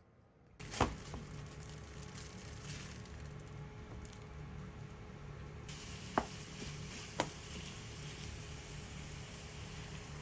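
Food sizzling in a hot pan, starting suddenly and then holding steady, with a few sharp utensil clicks against the pan.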